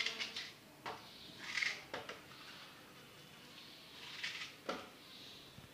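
An apple being peeled with a hand peeler: a few short scraping sounds and several sharp clicks.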